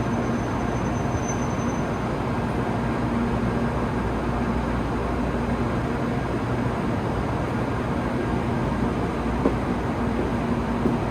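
Steady rumble and hum of a Tokaido Shinkansen train standing at the station platform, with a faint high whine in the first couple of seconds.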